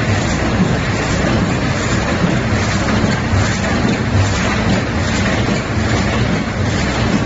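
1700CDS lead-edge-feed automatic die-cutting machine running: a steady, loud mechanical noise with a low hum underneath.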